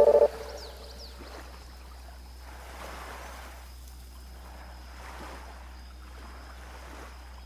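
Gentle sea waves washing on a beach, a soft rush of surf that swells and fades in slow surges. A few faint high bird chirps come near the start.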